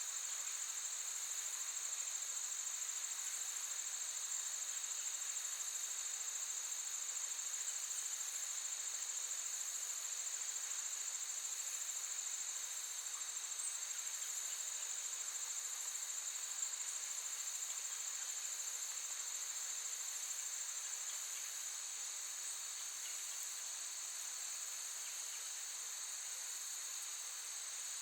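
Crickets trilling in a steady, high-pitched chorus, a little quieter from about three quarters of the way in.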